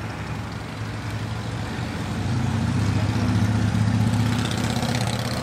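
A motor vehicle's engine running with a low, steady note, growing louder about two seconds in and easing slightly near the end.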